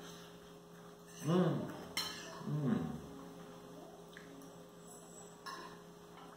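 A steady electrical hum, with a man's voice making two brief sounds while he eats, and a couple of light clicks of a fork and knife on a plate.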